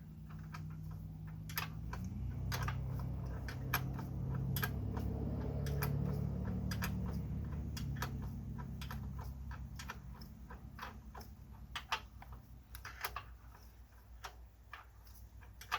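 Irregular metallic clicks of a hand wrench being worked on a bell housing bolt, a small turn at a time. A low rumble swells in the middle and fades near the end.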